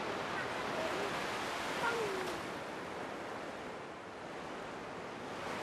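Sea waves washing onto a sandy beach, a steady surf wash.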